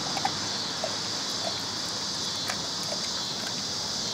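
A dog gnawing raw beef oxtail on the bone held in a person's hand: a few scattered faint crunches and clicks of teeth on bone, over a steady background hiss.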